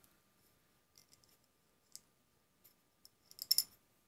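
Light clicks and taps of handling on an aluminium bar clamped in a bench vise: a few faint ticks, then a short cluster of sharper clicks about three and a half seconds in.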